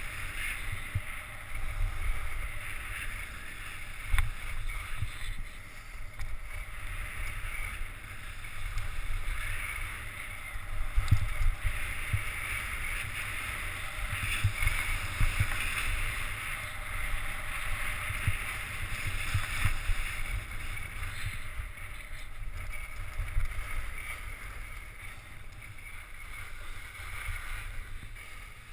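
Edges scraping and hissing over packed snow on a fast downhill run, with a low rumble of wind on the microphone and irregular low thumps as the slope's bumps are crossed.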